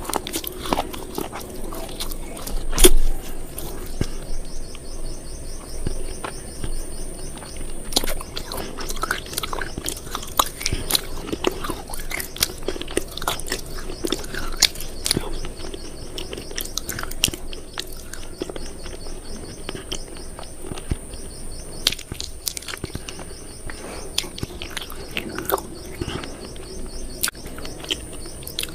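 Steady chewing and crunching on something hard and brittle, with dense, irregular crunches throughout.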